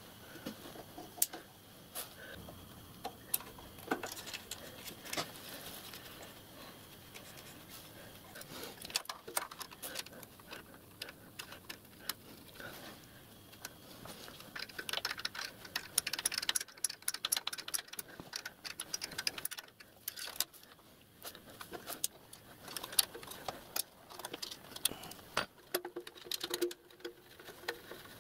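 Light, irregular metallic clicks, taps and small rattles as small 3/16-inch pipes and their union nuts are handled and fitted to a miniature steam locomotive's hand pump, busier about halfway through.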